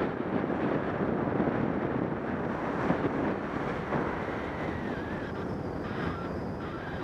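Airflow buffeting a paraglider pilot's camera microphone in flight: a steady rumbling wind hiss. Faint, broken high tones come in about halfway through.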